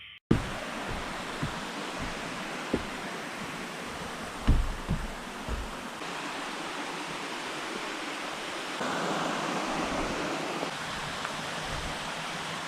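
Waterfall: a steady rush of falling water, with a few brief low thumps in the first few seconds, the loudest about four and a half seconds in.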